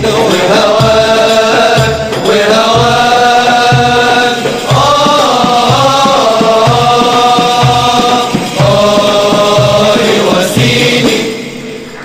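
Arabic Sufi devotional chant (madih) sung over a steady drum beat of about two strokes a second. The chant and drum stop near the end, and applause begins.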